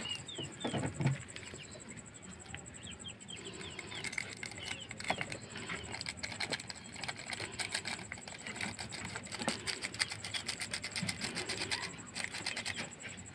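A plastic medicine sachet being handled and torn open, a rapid crackling and crinkling that runs for several seconds, with a few knocks near the start.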